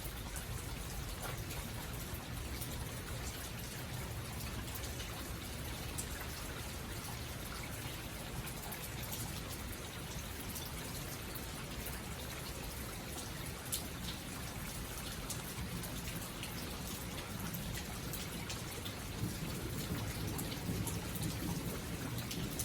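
Steady rain falling, with scattered ticks of single drops over a low steady rumble, getting slightly louder near the end.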